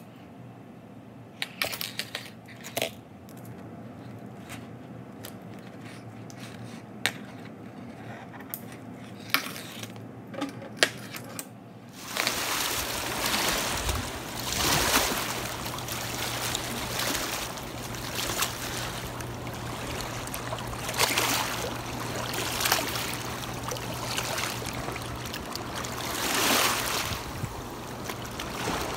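Scattered sharp clicks and clinks of metal snap clips on a rope fish stringer being handled, then, about twelve seconds in, a steady wash of shallow water lapping over shoreline rocks, swelling every few seconds.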